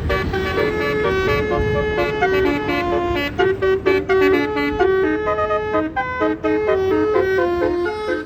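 A bus's basuri musical horn playing a tune of quickly changing notes, over the low rumble of vehicle engines.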